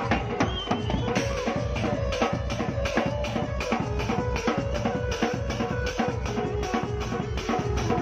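Dance music with a quick, steady drum beat under a held melody line.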